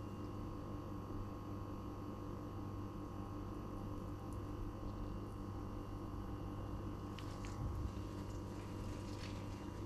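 Steady low electrical hum. Faint rustling handling sounds and a soft low thump about three-quarters of the way through, as the folded omelette is set down on the plate.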